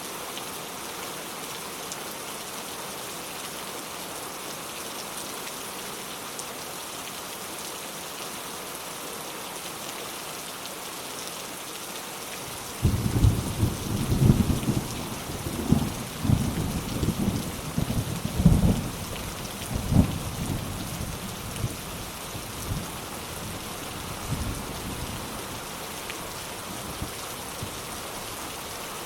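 Steady rain falling on surfaces. About thirteen seconds in, a thunder rumble starts suddenly, rolling through several loud peaks before fading away over about ten seconds.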